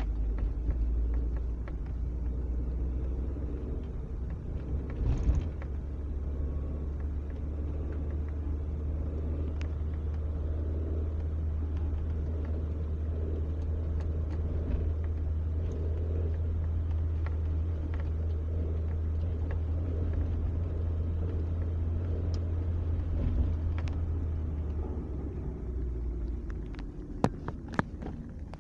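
Mazda Premacy 1.8 under way, heard from inside the car: a steady low engine and road drone with occasional sharp metallic knocks from the left side of the engine, a noise that goes away when the clutch is pressed. The drone fades near the end, where a few sharp clicks stand out.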